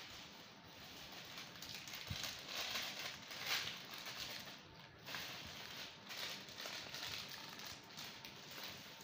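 Thin plastic shopping bag and plastic food packaging rustling and crinkling as groceries are pulled out and handled, in uneven spurts, loudest about three and a half seconds in.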